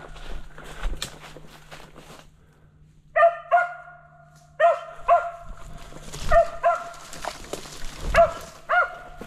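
Mountain cur barking after a squirrel, about nine sharp barks mostly in quick pairs from about three seconds in, some drawn out into a held note. Before the barking, footsteps crackle through dry leaves and brush.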